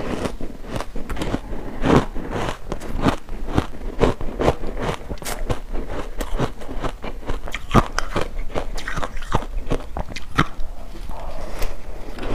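A person biting into and chewing layered ice bars: many sharp crunches in quick succession as the ice breaks up in the mouth.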